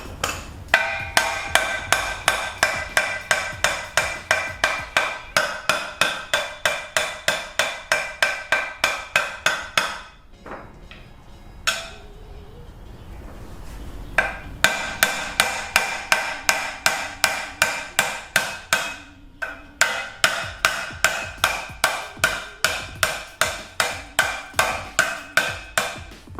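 Steady hammer blows on steel, about three a second, each ringing briefly: the old wheel bearing is being struck as a driver to push the new front wheel bearing into the steering knuckle. The hammering stops about ten seconds in, with one lone blow a little later, then resumes about fourteen seconds in and keeps going.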